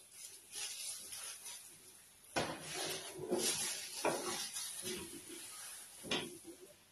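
Thin plastic bag crinkling and rustling as it is peeled off a ball of fufu, with three sharp knocks against a ceramic plate spread through the middle and end.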